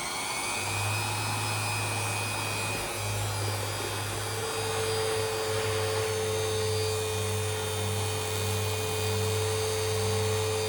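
Jicrade TM-1 variable-speed bench grinder's motor running, its whine rising in pitch at the start as the speed knob is turned up, then holding steady. A low steady hum comes in under a second in, and a further steady tone joins about halfway through.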